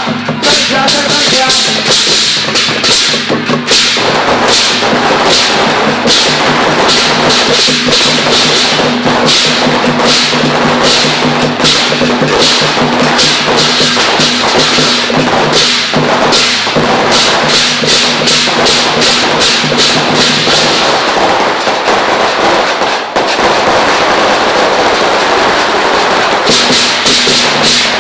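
Loud, dense drumming and percussion of a temple procession music troupe, fast repeated strikes over a steady low tone.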